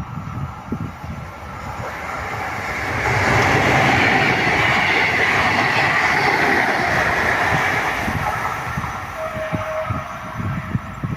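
A train passing through a station, its rumble building to a peak and then easing off, with the clickety-clack of wheels over rail joints near the start and end.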